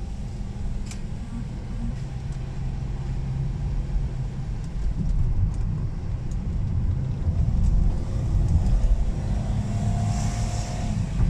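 Inside the cabin of a Toyota Vellfire 3.5 V6 on the move: a steady low rumble of engine and tyres on a wet road.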